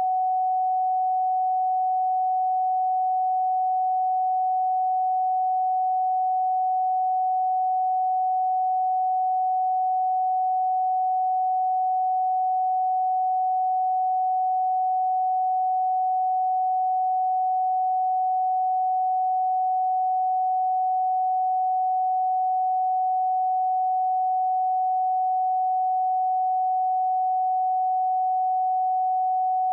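An electronically generated pure sine tone, a single steady pitch a little above 700 Hz, held unchanged with no other sound.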